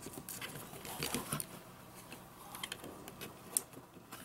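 Scattered light clicks and handling rustle of a 9-volt battery being fitted to its snap connector inside the plastic handle of a Bluebird BO-350 infrared thermometer.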